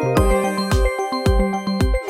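Electronic background music with a steady kick-drum beat, synth chords and bright bell-like notes.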